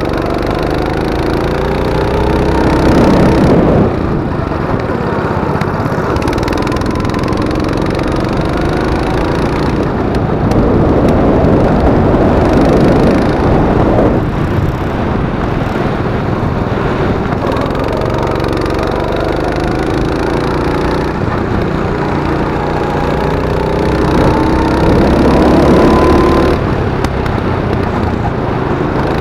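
Go-kart engine at racing speed heard from the driver's seat, its pitch climbing along the straights and falling off sharply into the corners, three times over.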